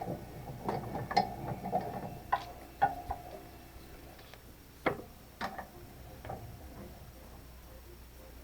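Irregular sharp clicks and light knocks, some with a brief ring, coming thick for the first few seconds and then only now and then after about five seconds.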